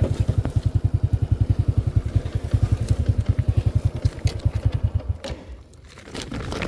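Single-cylinder engine of a Honda step-through motorcycle idling with an even rapid putter, about a dozen beats a second, then switched off about five seconds in; a few clicks and handling rattles follow.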